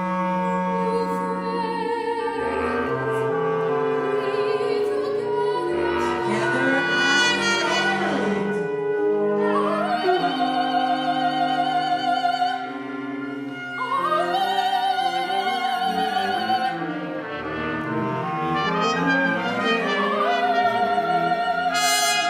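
Contemporary classical chamber ensemble of winds, brass, strings, piano and percussion playing, with a soprano singing three long held notes with vibrato in the second half, each reached by an upward slide.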